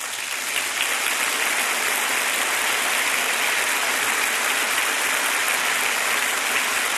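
A church congregation applauding, the clapping swelling to full strength within the first second and then holding steady.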